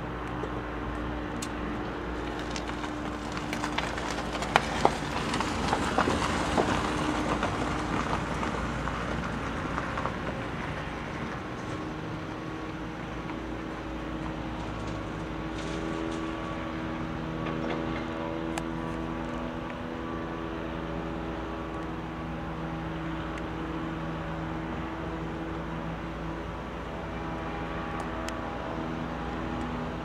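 Steady hum of distant vehicle noise with several held engine-like tones. Between about 3 and 10 seconds in it swells into a louder rush with a few sharp clicks, like a vehicle passing, then settles back to the steady hum.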